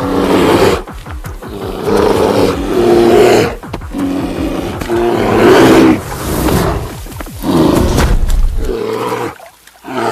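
Two male grizzly bears fighting, roaring and growling in a series of loud bursts of one to two seconds each.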